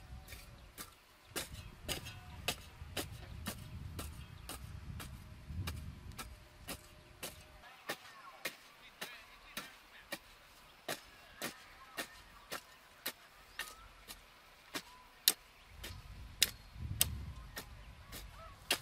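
Metal garden hoe chopping into dry, stony soil in quick, regular strokes, a little under two a second. A low rumble comes and goes under the strokes.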